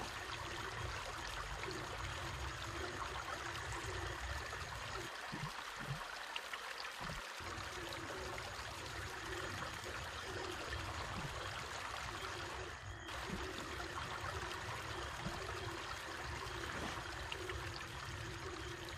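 Steady rush of flowing water, like a small stream or field ditch running, with no other event standing out.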